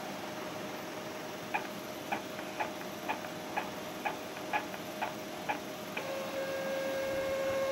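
RIECAT DTF printer at work, its print head carriage shuttling across the shirt with a sharp tick about every half second. About six seconds in the ticking stops and a steady electric whine from the printer's motor takes over, growing louder.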